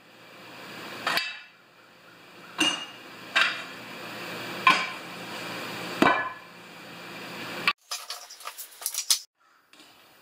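Tools and metal objects being moved about on a workbench: about five separate knocks and clanks, each with a short ring, then a quick burst of rattling clicks near the end.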